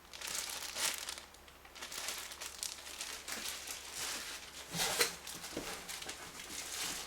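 Plastic packaging crinkling and rustling in irregular bursts as small toy figures are handled, loudest about five seconds in.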